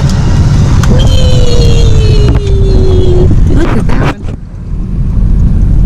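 Car cabin rumble from the engine and tyres as the car drives slowly, with a long, slowly falling tone lasting about two seconds. A few clicks come near the end, and the rumble dips briefly.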